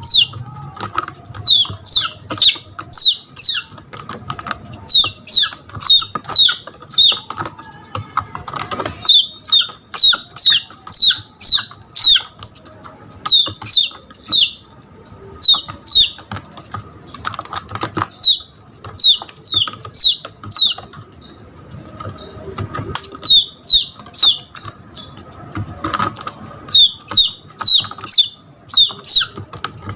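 Red junglefowl chick peeping in distress, the call of a lost chick calling for its mother. The peeps are loud, high and falling, coming in quick runs of three to six with short pauses between runs.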